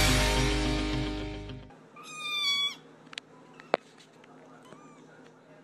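Loud rock music ringing out on a chord and cut off about a second and a half in. Then a kitten meows once, a high cry of under a second, followed by two sharp clicks and a few faint short mews.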